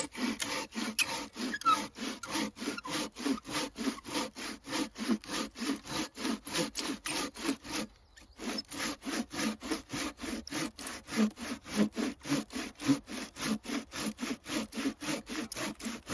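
Corona 18-inch RazorTOOTH pruning saw cutting through an old burnt stump's hard, resin-soaked wood, in fast, even strokes of about three a second. The sawing breaks off briefly about eight seconds in, then carries on.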